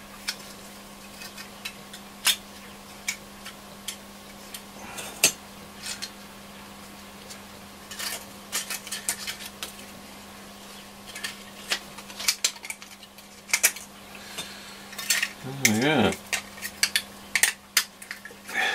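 Light metallic clicks and taps from a small metal-cased Mullard transistor module and its circuit board being handled and set down, scattered at first and coming in quick clusters in the second half. A steady low hum runs underneath.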